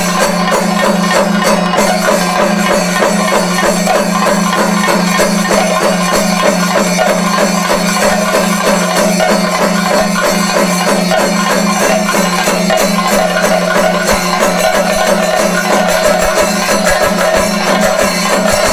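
Thayambaka played on Kerala chenda drums: fast, unbroken stick strokes on the chendas, with the jingle of elathalam hand cymbals keeping time.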